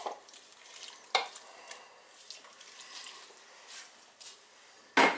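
Kitchen handling noise as chopped vegetables go into a big cooking pot: a faint hiss, a light clatter about a second in and a louder knock near the end.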